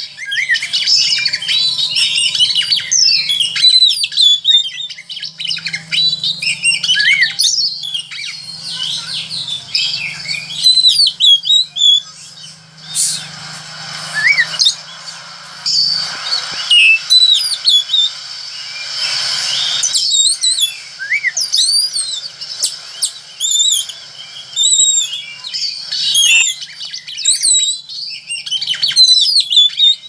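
Oriental magpie-robin (kacer) singing vigorously in the rapid chattering 'ngeriwik' style: fast, varied high chirps and whistled glides, mixed with a few harsher raspy notes and broken by short pauses.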